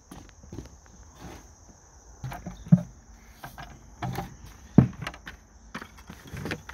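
Empty plastic five-gallon buckets being handled: scattered rustling and light knocks, with two sharp knocks about two seconds apart near the middle.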